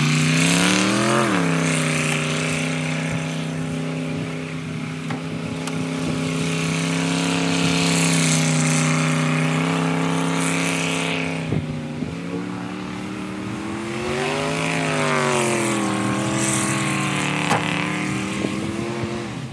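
An SUV's engine revving hard as it spins its wheels through mud and slush. The revs surge about a second in, hold high and steady for several seconds, ease off past the middle, then surge and fall again.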